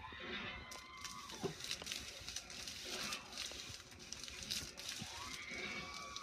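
Light rustling and crinkling of hanging streamers brushing past, with a faint whine that comes twice and drops off.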